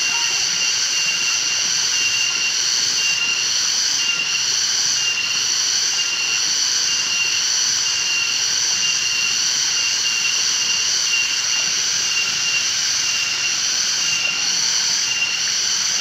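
Steady rush of a waterfall with a steady high-pitched whine over the noise, unchanging throughout.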